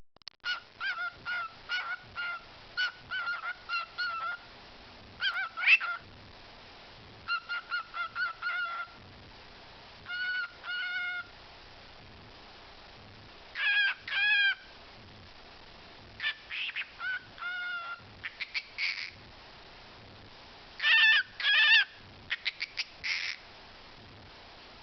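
Pet talking bird calling in quick runs of short, pitched notes, with pauses of a second or more between runs and a few longer wavering calls.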